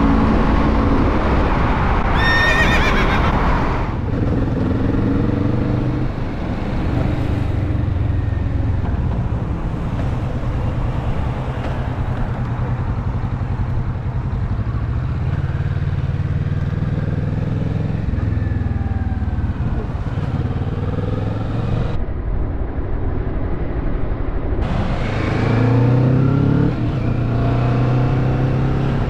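Kawasaki Vulcan S 650's parallel-twin engine running hard under load, its revs rising and falling as the bike accelerates through the gears, with a sharp, high climbing rev about two seconds in and another run of rising revs near the end.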